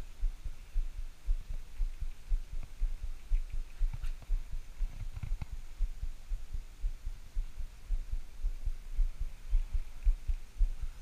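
Low, irregular thumping rumble on the camera's microphone, several thumps a second, with a few faint clicks.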